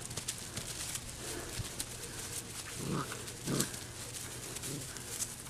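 Great Bernese puppies, a Great Pyrenees and Bernese Mountain Dog cross, making short low vocal sounds close to the microphone. Two come about halfway through and a fainter one near the end. Light clicking and rustling runs under them.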